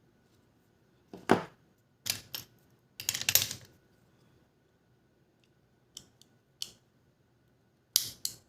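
Small, sharp clicks and taps of a precision screwdriver and small parts against the GoPro Hero 5 Black camera's body while its internal screws are being removed, in irregular groups with a short rattling run about three seconds in.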